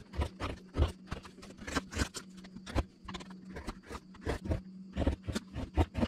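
Carving gouge cutting out the bowl of a wooden spoon blank: a quick, irregular run of sharp chips and knocks, about three or four a second, over a faint steady hum.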